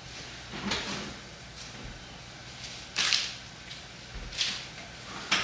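Kitchen handling sounds while assembling pastries: four short, sharp swishing noises about a second or more apart, over a faint steady hum.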